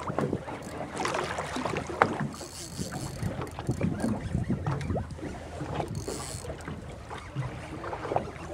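Wind on the microphone and sea noise around a small fishing boat, with scattered clicks and knocks from a spinning reel and rod as a hooked fish is wound in. Two brief high hisses come about two and a half seconds and six seconds in.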